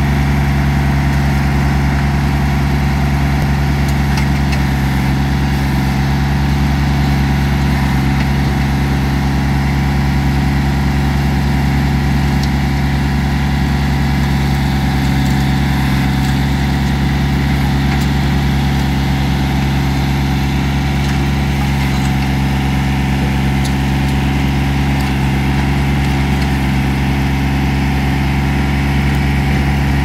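John Deere 855 compact tractor's three-cylinder diesel engine running at a steady speed, a constant low drone that does not change in pitch while the backhoe stabilizers and boom are worked.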